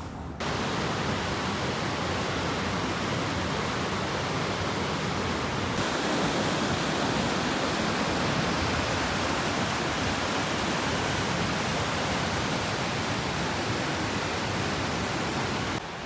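Niagara River rapids above the falls: white water rushing very fast, a steady dense rush of noise.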